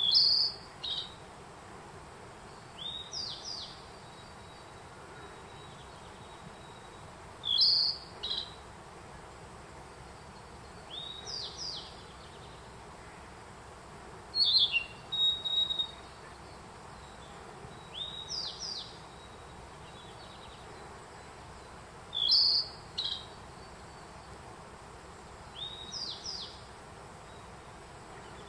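A Narcissus flycatcher singing, its short high phrases alternating with the 'fee, chee, chee' song of a black bunting, so the two seem to answer each other every three to four seconds.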